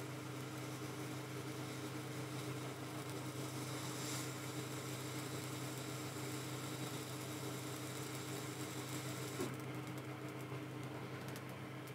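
Faint, steady hum of a CO2 laser cutter while its beam is pulsed into an acrylic block. A faint hiss over the hum drops away about nine and a half seconds in.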